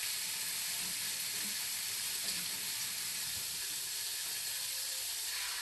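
Noodles sizzling in a hot skillet as their water cooks off, a steady hiss.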